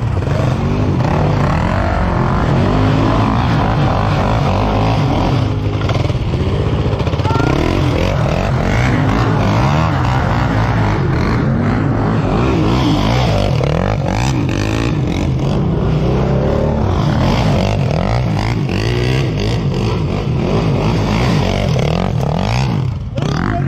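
Off-road vehicle engines running under load while riding, the revs rising and falling again and again.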